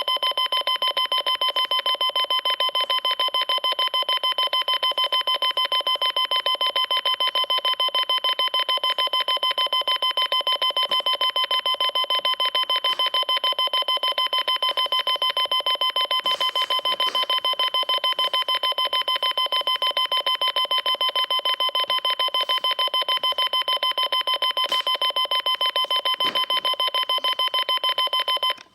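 Rapid electronic alarm beeping, one shrill beep after another at an even pace, cutting off abruptly near the end.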